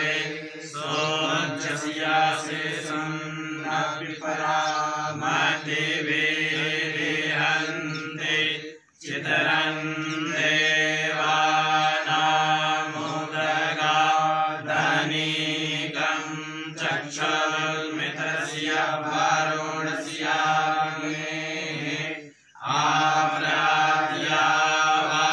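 Male voices chanting Sanskrit Vedic mantras in a steady recitation, broken by two brief pauses for breath, about nine and twenty-two seconds in.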